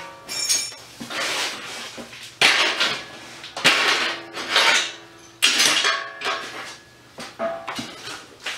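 Welder laying a series of short tack welds on a steel frame: bursts of crackling arc noise, each about half a second to a second long, with quiet gaps and light metal clinks between.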